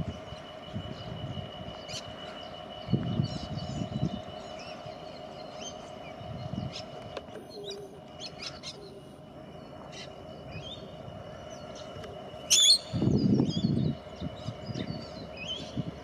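Birds chirping and calling in short scattered notes over a steady background hum, with low rumbling bursts about three seconds in and again near the end, the second the loudest.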